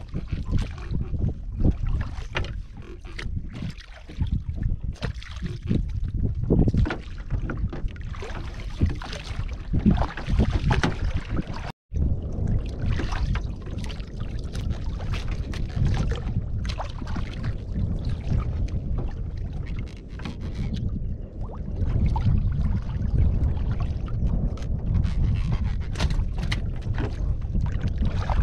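Wind rumbling on the microphone over water lapping at a small wooden boat, with scattered knocks and clicks from fishing line and catch being handled on the planks. The sound cuts out completely for a moment a little before the middle.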